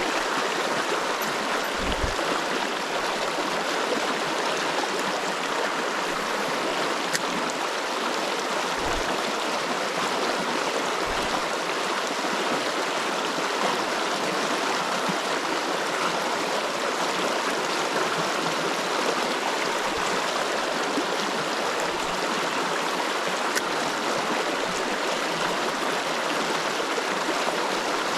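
A small river's current running and rushing over rocks, a steady, even rush of water.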